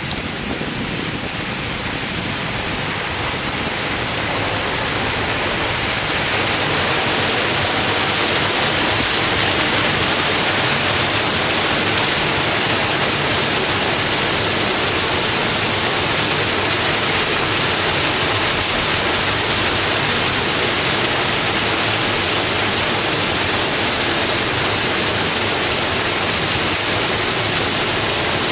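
Waterfall pouring down a rock cliff into the sea, a steady rushing noise that grows louder over the first six seconds or so, then holds.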